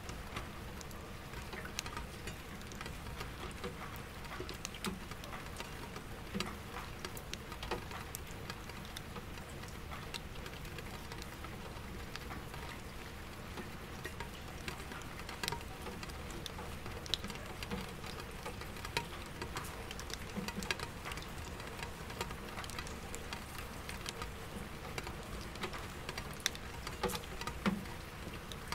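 Soft rain, with single drops tapping irregularly on window glass and an empty bucket, over a steady low hum of distant city traffic.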